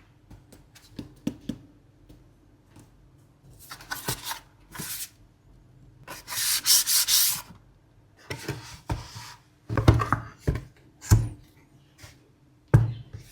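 Hands rubbing and sliding over a surface in a run of separate brushing strokes, the longest lasting about a second and a half in the middle. Near the end come a few soft knocks and taps with a dull thud.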